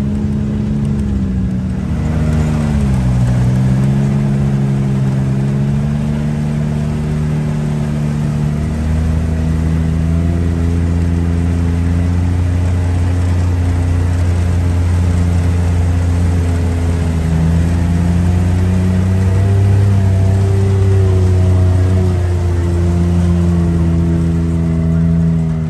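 A vehicle engine running at a steady pace, its pitch dropping briefly about two to three seconds in as it eases off, then climbing back and holding; a deep steady drone joins about nine seconds in.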